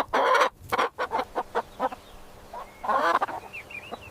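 Chicken clucking in a quick run of short clucks, then a longer, louder squawk about three seconds in.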